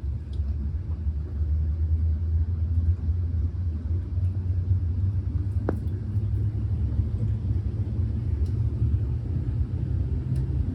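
Cable car cabin running along its cable: a steady low rumble, with a single sharp click a little past halfway.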